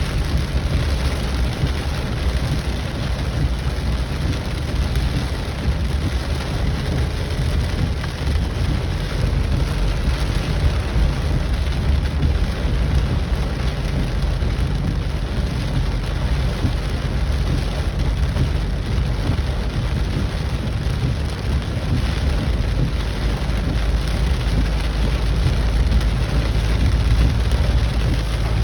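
Heavy rain falling steadily, with a steady low rumble underneath.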